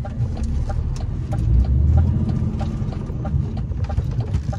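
A lorry cab's turn-signal indicator ticking about three times a second over the low running of the truck's diesel engine. The engine grows louder for about a second, starting about one and a half seconds in.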